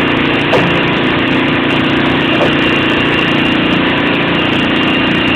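Electric core drill mounted on a rig base, running steadily while its core bit cuts a 2-inch hole through a wall: an even motor hum with a faint high whine over it. There is a light knock about half a second in.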